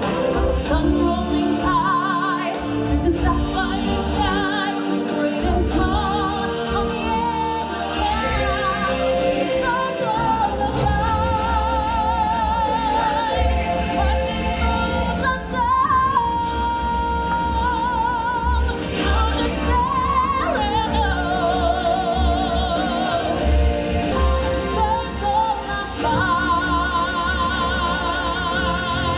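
Live singers performing a stage-show song, holding notes with wide vibrato, several voices at once, over loud backing music with a heavy bass beat.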